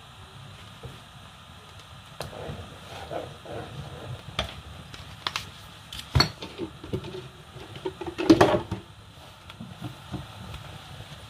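A spoon stirring thick soup in an aluminium pot, knocking against the pot several times, with a louder clatter about eight seconds in, over a low steady rumble.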